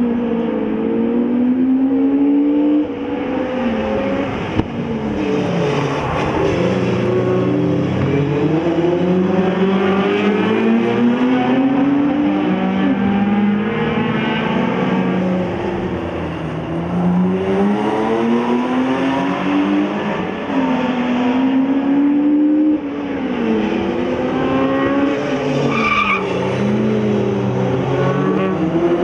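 Several race car engines running hard at once, their overlapping notes climbing and then dropping back every few seconds as the cars accelerate and lift.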